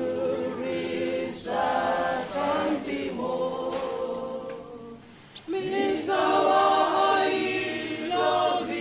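Group of voices singing a cappella in harmony, a hymn-like sung prayer in held phrases, with a brief pause about five seconds in before the singing resumes.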